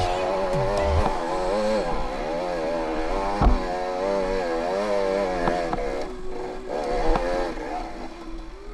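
Dirt bike engine revving up and down as it is ridden, its pitch rising and falling with the throttle, with a few sharp knocks along the way. About six seconds in the engine drops back and runs quieter.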